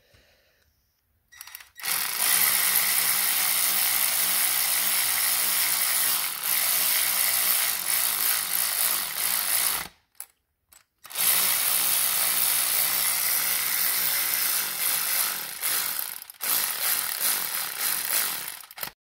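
Yato cordless electric ratchet running under power on an engine bolt, its motor and gearhead whirring steadily. The run starts about two seconds in, stops for about a second around the middle, then starts again with a brief break near the end.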